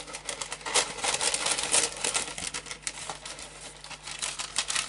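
Paper packaging of a beauty box being handled and unpacked: tissue paper and shredded paper filler rustling and crinkling in a dense run of small crackles, busiest in the first couple of seconds.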